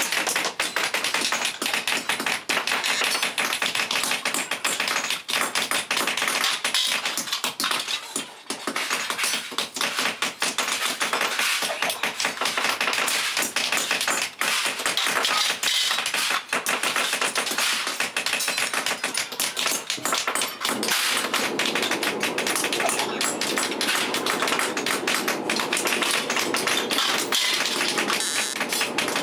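Continuous rapid tapping and clatter, many sharp knocks a second, with a brief lull about eight seconds in.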